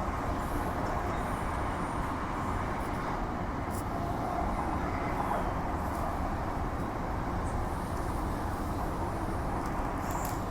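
Steady running noise of a Transperth A-series electric multiple unit, heard from inside the carriage as it travels between stations.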